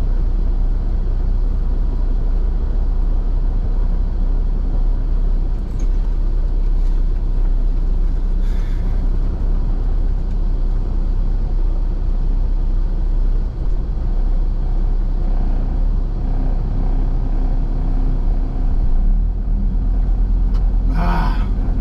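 Semi truck's diesel engine running steadily as the rig creeps through a mud hole. A short, sharp hiss comes near the end.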